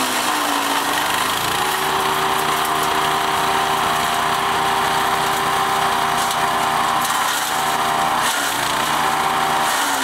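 Wood chipper running steadily while shredding olive branches. Its engine note drops lower twice under load, near the start and again near the end.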